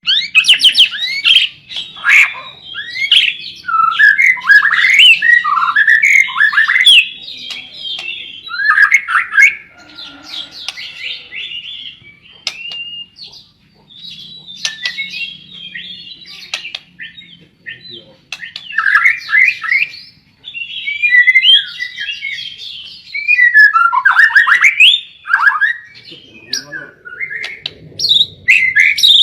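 Blorok songbird singing fast, chattering phrases of rapid sweeping notes and squawks, with brief pauses between bursts.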